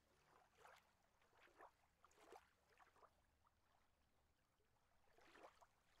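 Near silence: still outdoor ambience with a few faint, brief ticks and trickles scattered through.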